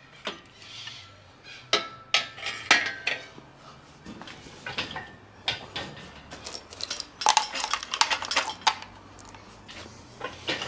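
Metal parts and tools clinking and clattering against an engine on a stand: an irregular run of sharp clinks and knocks, some briefly ringing, busiest in the second half.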